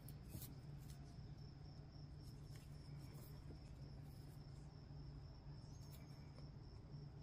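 Near silence: room tone with a faint steady high-pitched whine and a low hum, broken by a few faint ticks.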